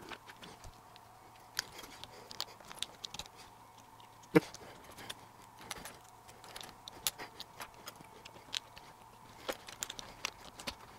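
Small, irregular plastic clicks and light rattling as 3D-printed cable chain links and wires are handled and clipped together, with one louder click about four seconds in.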